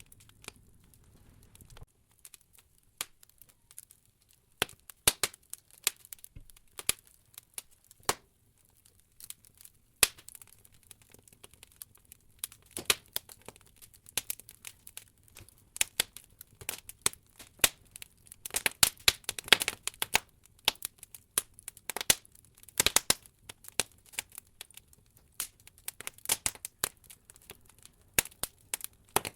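Wood logs burning in an open fireplace, crackling with irregular sharp pops and snaps, and a denser flurry of pops about two-thirds of the way through.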